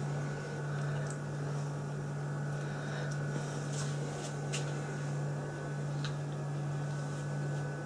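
A steady low hum with a few faint, small clicks scattered through it.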